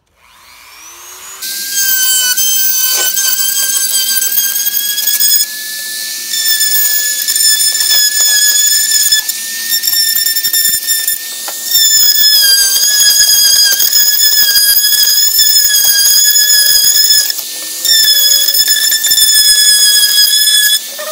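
Dremel rotary tool with a fine cutting tip running at high speed, grinding into plastic as it cleans out the corners of cut-out grille openings. A loud, high, steady whine that spins up over the first second or so, with a few short drops in level as the bit is eased off and pressed back in.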